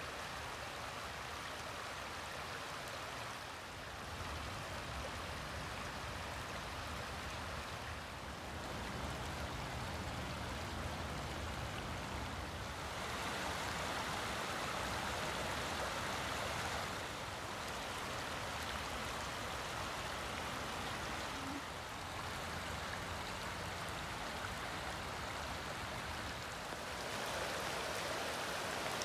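Small forest creek running over stones and gravel, a steady rush of water. Its level and tone shift abruptly every four or five seconds as one day's recording gives way to the next.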